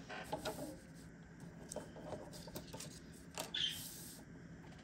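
Paper card being handled and positioned on a paper trimmer: faint rustling and light taps, with a brief scrape a little after three seconds in.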